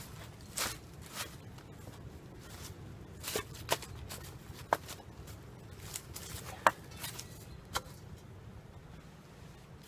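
Digging a hole in woodland ground with a hand tool: irregular sharp chops and scrapes into soil, about seven distinct strikes, the sharpest two about a third and two-thirds of the way through.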